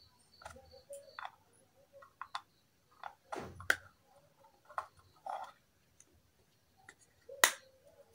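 Light plastic clicks and knocks as a miniature plastic toy pot and its lid are handled, the lid set on and lifted off. The sharpest knock comes near the end.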